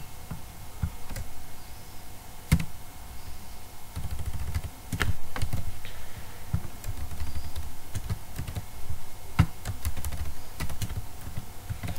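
Computer keyboard typing: irregular key presses, with a few sharper key clicks standing out.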